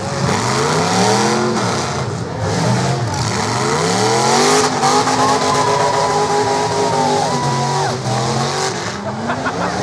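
Demolition derby cars' engines revving hard and dropping back, several at once, as the cars ram and push against each other. A long, steady high squeal runs for a couple of seconds in the middle.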